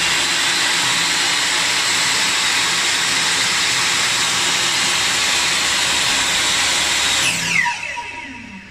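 Lumberjack TS254SE table saw running free with no load, a loud steady whine. About seven seconds in it is switched off, and the blade spins down with its pitch falling away.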